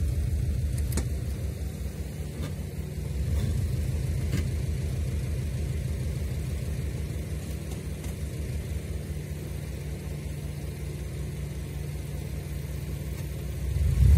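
Subaru Outback VDC's flat-six engine running at low revs under load as the car crawls over a dirt mound, a steady low rumble. The revs rise sharply near the end.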